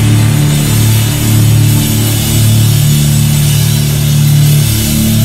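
Loud live rock music: a full band playing, with a drum kit and cymbals over held low guitar and bass notes.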